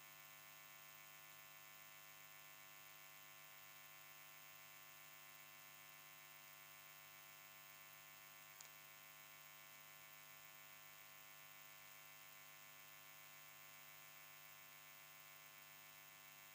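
Near silence: a faint steady electrical hum and hiss, with a single brief click about halfway through.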